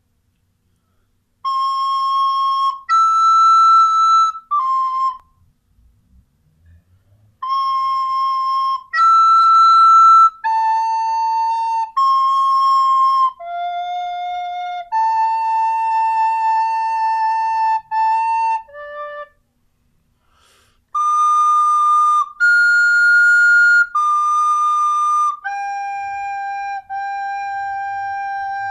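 White plastic soprano recorder playing a slow solo melody of single held notes, one at a time. The notes come in three phrases with two short breaks between them.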